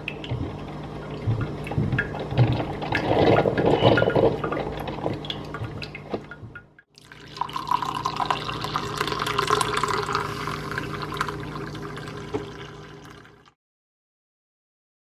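Drip coffee maker brewing, hot water hissing and gurgling as coffee drips into the glass carafe. After a brief break about seven seconds in, coffee is poured from the carafe into a ceramic mug; the pour stops a couple of seconds before the end.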